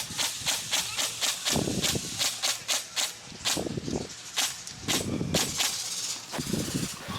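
Quick footsteps with gear rattling, about four steps a second, then slower and more uneven after about three seconds.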